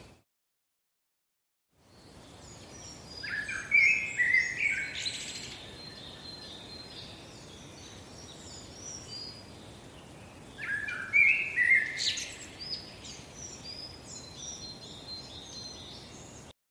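Songbirds singing over a steady background hiss, starting suddenly after nearly two seconds of silence. A loud warbling phrase comes about three and a half seconds in and a very similar one about seven seconds later, with softer chirps between, and the sound cuts off abruptly near the end.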